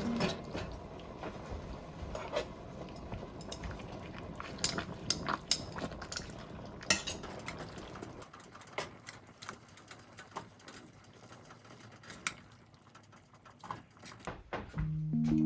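Kitchen utensils clinking against bowls and pans in irregular sharp clicks, during home cooking.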